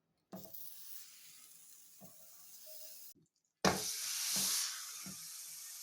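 Food sizzling and hissing in a hot pan, with a few light knocks of utensil or food against the pan. It comes in two stretches split by a brief silence, the second louder.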